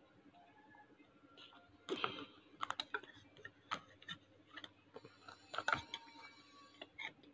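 Irregular light clicks and taps, starting about two seconds in, from small plastic cups and a spoon being handled while drinking.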